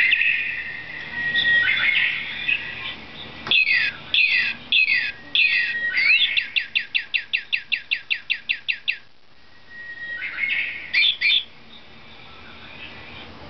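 Voice-activated toy bird playing recorded birdsong. Chirps open it, then four downward-sweeping whistled notes and a fast trill of repeated notes, about five a second for some three seconds. After a short pause a few more chirps follow.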